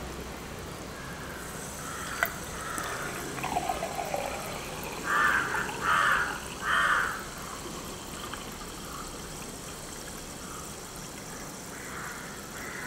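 Soda water poured from a plastic bottle into a glass beer mug, splashing and filling. There are three louder gurgles close together around the middle.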